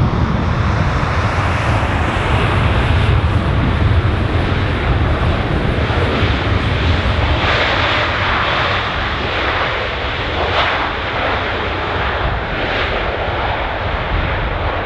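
Jet engines of a Boeing 787 Dreamliner during its landing roll: a steady, loud rumble and rush of noise as the aircraft slows down the runway.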